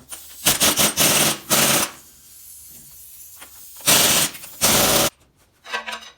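Impact wrench hammering in two bursts of about a second and a half each, loosening bolts.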